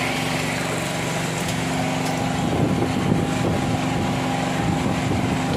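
Portable gasoline generator's engine running steadily with an even hum, turning a little rougher about two seconds in.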